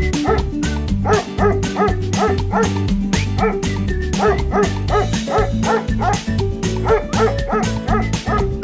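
A dog barking in a quick run of short barks, several a second, starting about a second in, over upbeat background music with a steady beat.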